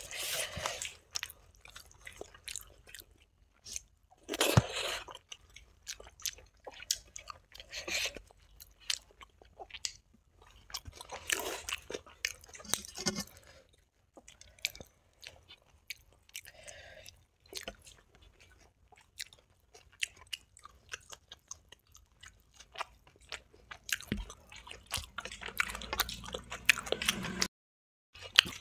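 Close-miked eating sounds: irregular chewing and biting with wet squishing of rice and dal mixed by hand and occasional crunches of crisp fried brinjal.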